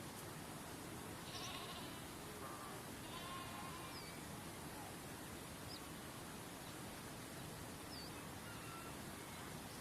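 Steady rush of a waterfall, with scattered short bird chirps and whistles over it and two brief quavering animal calls in the first few seconds.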